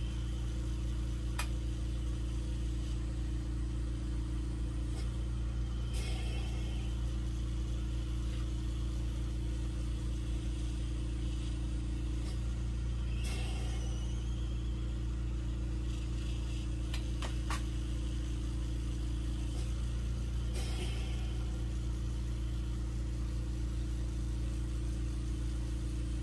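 Electric mandrel spinner's motor running steadily at high speed, a constant low hum with a few faint clicks over it.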